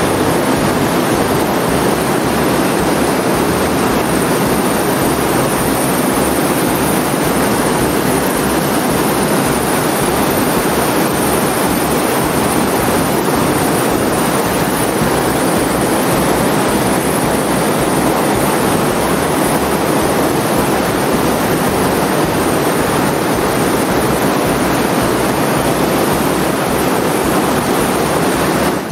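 Steady loud rush of flowing water echoing in a limestone cave, unchanging throughout.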